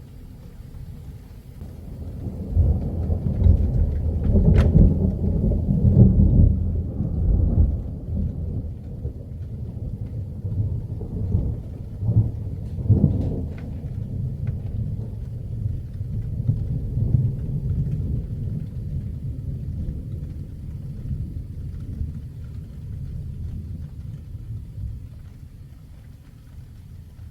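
A long roll of thunder building about two seconds in, with a sharp crack among its loudest stretch, then rumbling on in waves and dying away near the end.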